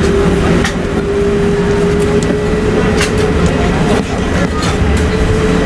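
Cabin noise inside an Airbus A380-842 rolling on the ground: a steady hum from its Rolls-Royce Trent 970 engines, a low rumble, and a tone that creeps slowly higher in pitch. Short knocks or rattles come about once a second.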